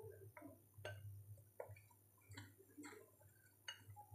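Faint, irregular ticks and soft scrapes of a spoon stirring dry flour in a glass bowl.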